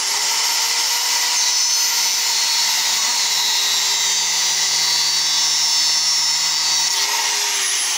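Handheld electric disc cutter running at full speed and cutting through a thin steel rod: a steady high whine with the grinding hiss of the disc in the metal. The whine rises briefly about seven seconds in.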